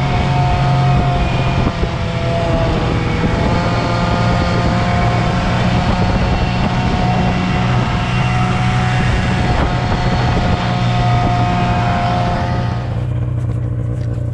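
Snowmobile engine running steadily under way, a loud drone with a pitched whine over it that dips briefly about two to three seconds in. About a second before the end the higher part of the sound drops away and the engine eases.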